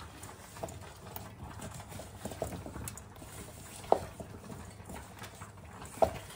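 Silicone spatula stirring chunks of vegetable and wet spice paste in a stainless steel pot: irregular soft knocking and scraping, with sharper knocks about four seconds and six seconds in.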